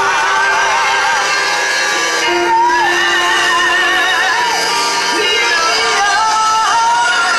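Live gospel worship music: amplified voices sing long held notes with a wavering vibrato over steady instrumental backing.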